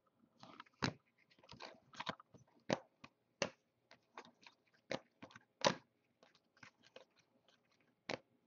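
Stack of Topps Chrome football trading cards handled and flipped through by hand: a quick, irregular run of faint clicks and short slides as cards are slid off the stack and tucked to the back.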